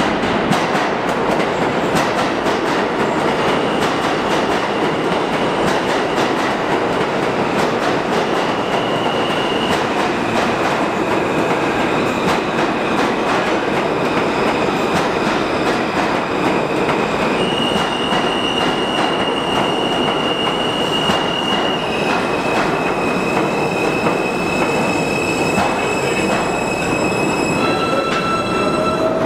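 An R160 New York City subway train pulling into the station and braking. The wheels rumble and rattle on the rails under a high, held squeal that shifts pitch a few times, and near the end several high tones sound together as the train slows.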